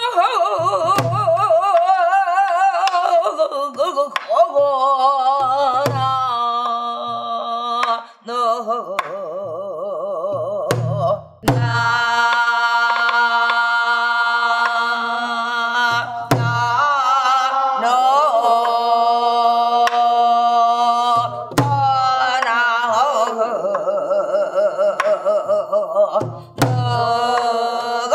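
A woman singing guum, Korean traditional wordless vocal melody, in held notes with wide vibrato and sliding pitches, while accompanying herself on a buk barrel drum. Deep drum strokes land every five seconds or so, with sharp stick strikes in between.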